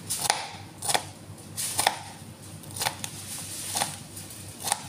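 Kitchen knife chopping green bell pepper on a plastic cutting board: six sharp knocks of the blade on the board, roughly one a second and unevenly spaced.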